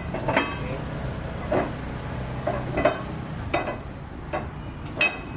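Irregular series of short knocks and scrapes from hand-tool work on a building site, roughly one a second, some with a slight metallic ring, over a steady low hum.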